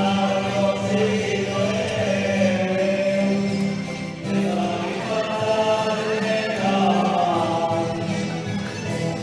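Traditional Valencian dansà music for a street folk dance: a melody with singing over a steady low accompaniment.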